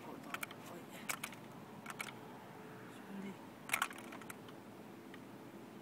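Several short clicks, some in quick pairs, as a handheld fish scale with a northern pike hanging from it is handled.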